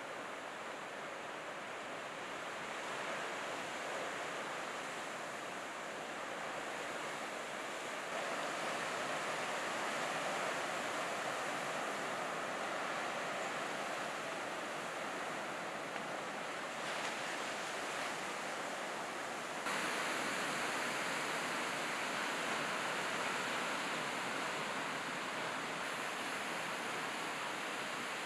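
Steady rushing wash of heavy ocean surf breaking on an offshore reef. The tone and level shift suddenly a few times.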